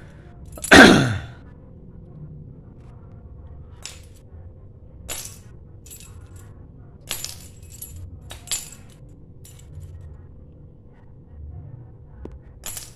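Small metal keys on a dangling cat toy clinking in short, scattered jingles as a kitten bats at them, with one much louder swish, falling in pitch, about a second in.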